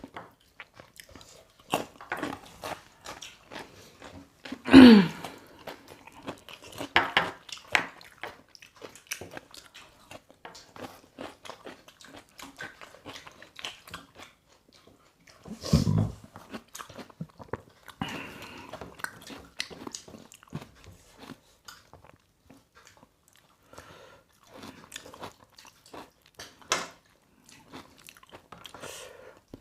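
Close-up chewing and biting of chicken, with crunching and wet mouth clicks. A louder short sound falling in pitch comes about five seconds in, and a heavy thump near the middle.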